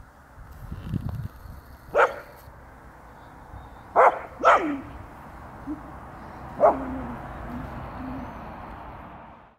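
Rough collie puppy barking four times: single sharp barks, the middle two in quick succession, over a steady background hiss.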